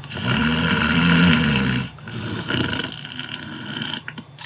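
A man snoring heavily: a loud, rough snore lasting about two seconds, then a second, weaker one.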